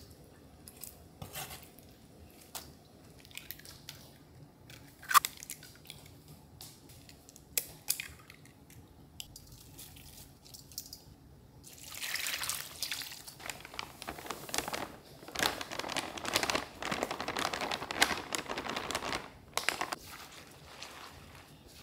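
Batter ingredients going into a stainless steel mixing bowl by hand: scattered light taps and clicks, then about seven seconds of dense rustling as flour goes onto the chive, squid and egg mixture.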